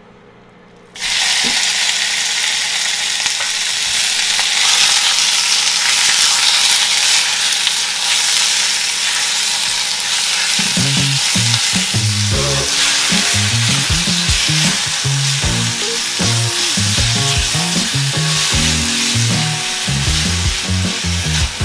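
Sliced pork belly sizzling loudly in hot oil in a Staub cast-iron pot, starting suddenly about a second in as the meat hits the oil, and stirred with a spatula. About halfway through, music with a low bass line comes in under the sizzle.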